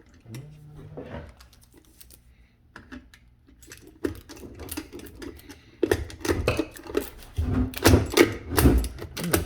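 Irregular clicks and rattles of the old wire being worked out of a garbage disposal's wiring compartment by hand. About six seconds in it turns into a run of louder knocks and clatter.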